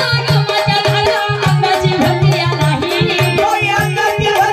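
Marathi gavlan folk song: a woman sings over a fast, steady hand-drum rhythm and held instrumental notes.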